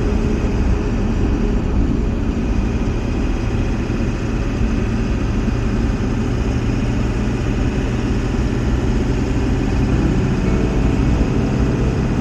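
Steady engine and road noise inside a pickup truck's cab while driving, a low drone under an even rush of tyre noise; the low drone grows a little stronger near the end.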